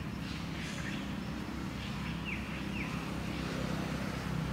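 Steady low rumble with a bird giving two quick falling chirps about two seconds in.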